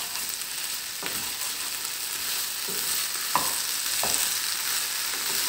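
Potato strips and onion frying in oil in a frying pan, sizzling steadily while being stirred with a wooden spatula, which knocks against the pan a few times.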